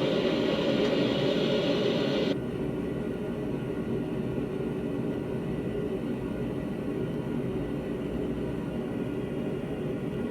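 Blacksmith's forge running with a steady roar, no hammer blows; a louder hiss on top cuts off about two seconds in, leaving the lower roar.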